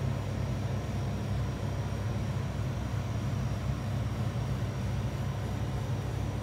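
A steady low hum with a faint, thin high-pitched whine above it.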